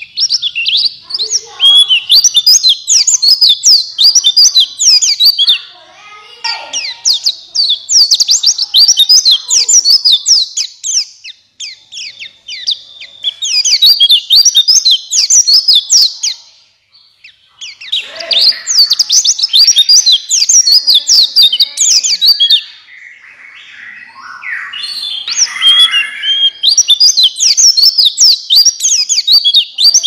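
Male white-eye of the buxtoni race (pleci buxtoni) singing a fast, high twittering song in long runs of several seconds, broken by short pauses: the sustained 'gacor ngalas' singing that is played as a lure to get captive white-eyes to sing.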